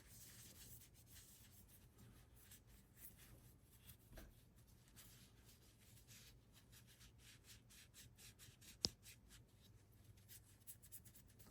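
Faint rubbing of a cloth polishing a small part, with scattered small scratchy ticks and one sharper click about nine seconds in; close to silence overall.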